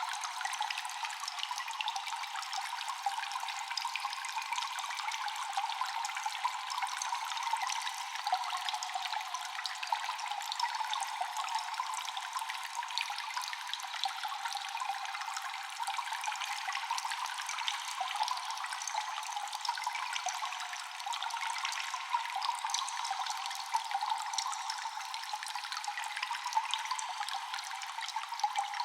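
Cave ambience of constantly dripping water with echo: many small drops falling over a steady trickle of running water.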